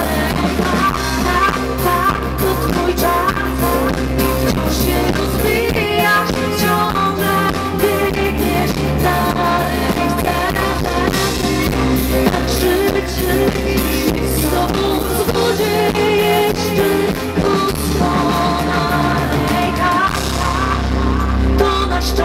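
Live pop-rock band playing with a woman singing lead into a microphone, over bass, guitars and drums.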